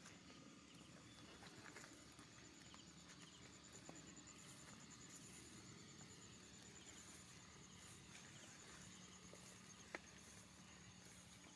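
Near silence: a faint, steady, high-pitched insect trill over quiet outdoor ambience, with a single sharp click about ten seconds in.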